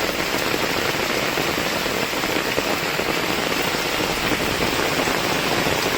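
Steady, heavy rain falling, an even hiss with no let-up.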